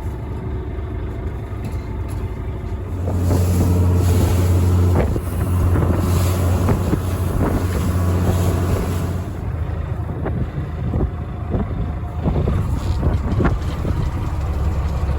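Fishing boat's engine running with a steady low hum that gets louder about three seconds in, with wind on the microphone.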